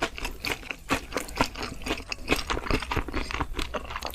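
Close-miked eating sounds: a quick, irregular run of crisp crunching and chewing clicks, several a second.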